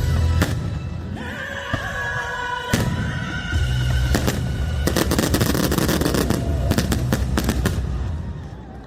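Fireworks going off: single sharp bangs, then a dense run of rapid crackling bangs from about five seconds in, over music playing underneath.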